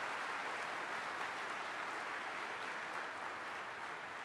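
Audience applauding: steady clapping from a large crowd.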